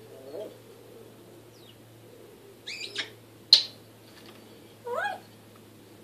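African grey parrot making a string of short calls and whistles: a pair of high gliding notes, then a loud sharp whistle about three and a half seconds in, and a rising call near the end.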